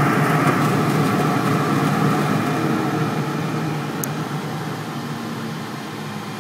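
Steady mechanical hum and hiss of a running fan, slowly getting quieter, with a brief high click about four seconds in.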